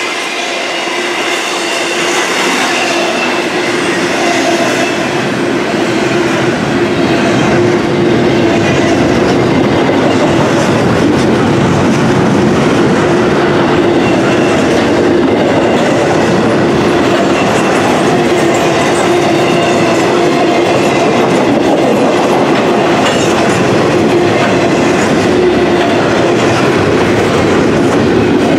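Freight train of double-stacked intermodal well cars rolling past close by: steady rumble of steel wheels on rail with clickety-clack over the rail joints, growing louder over the first several seconds and then holding steady.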